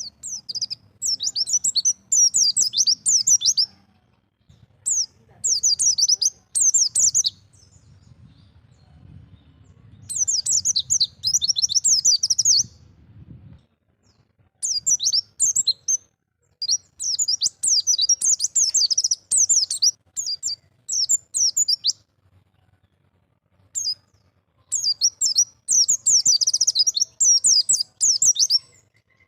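A white-eye (pleci) singing in the wild 'ngalas' style: phrases of rapid, high twittering chirps lasting one to four seconds, with short pauses between them.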